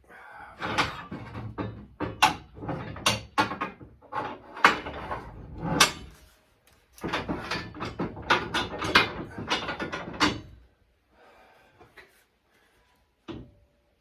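Metal parts and support blocks being handled and set in place on a shop press: a run of knocks, clanks and clatter in two long bursts, then a lull with one more knock near the end.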